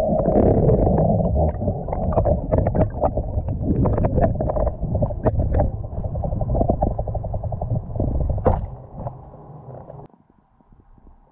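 Muffled underwater sound picked up by a submerged camera: a dense low rumble of moving water with many small clicks and crackles as bubbles drift past. About ten seconds in it cuts off suddenly to a faint, quiet hum.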